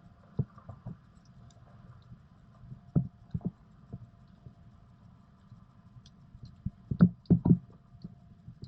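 Scattered light knocks and clicks of small metal bolts and a hand tool against the e-bike's handlebar stem clamp as the bolts are fitted. The loudest knocks come in a quick group about seven seconds in.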